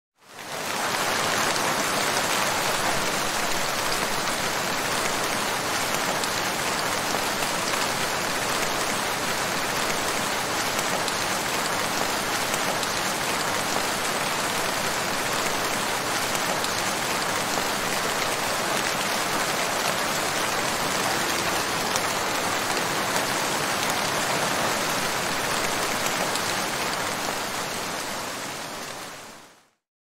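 Heavy rain falling steadily, an even hiss without distinct drops or thunder. It fades in at the start and fades out near the end.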